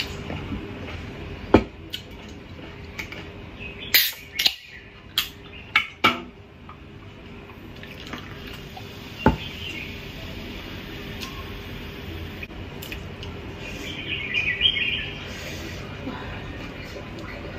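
Tableware and a soda can handled on a table during a meal eaten by hand: a handful of sharp knocks and clinks, most of them bunched a few seconds in, one more near the middle, and a brief crackle near the end.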